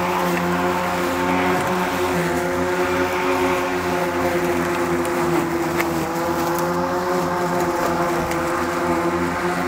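Kobalt 40-volt cordless electric lawn mower running steadily while cutting grass, its motor and blade giving an even whine over the rush of the cutting, with a few light ticks.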